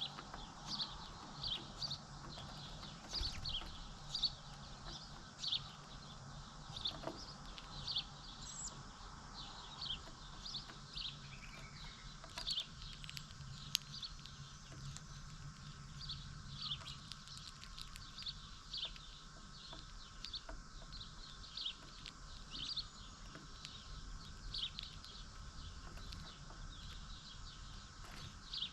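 Small birds chirping over and over, short high chirps coming about once or twice a second, over a faint steady low hum.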